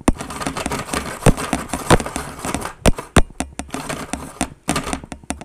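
Hand-cranked Snoopy snow cone maker shaving ice: a continuous grinding crunch broken by many irregular sharp cracks as the blade bites into the ice cubes.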